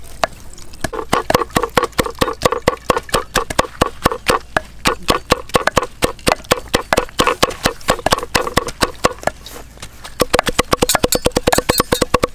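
Cleaver chopping dried red chillies on a round wooden chopping block: rapid, evenly spaced chops starting about a second in. There is a short break near the end, then the chopping resumes faster.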